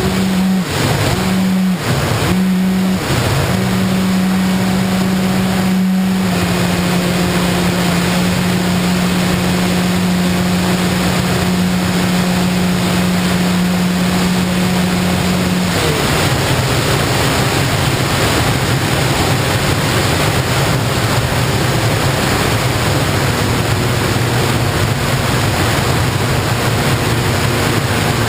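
Electric motor and propeller of an FPV model aircraft running with a steady hum, with rushing wind noise. It cuts out briefly a few times in the first seconds, then drops to a lower pitch about halfway through as the throttle comes back.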